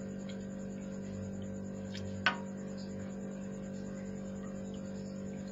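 Steady low electrical hum with little else, and a single faint tap about two seconds in.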